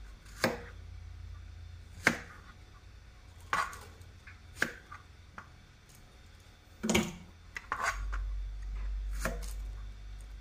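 Kitchen knife cutting through small Thai eggplants and knocking on a plastic cutting board: about six separate sharp cuts, spaced a second or two apart.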